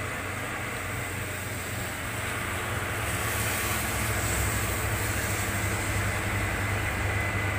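Heavily loaded diesel cargo truck's engine running under load as it climbs the hill, with a low rumble that grows louder partway through as the truck draws near. Tyre hiss on the wet road and rain run steadily under it.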